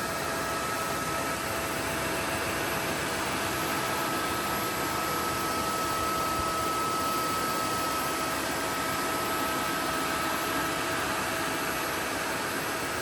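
Roborock F25 ACE Combo wet-dry vacuum cleaner running steadily: a hiss of motor and suction with a constant high whine.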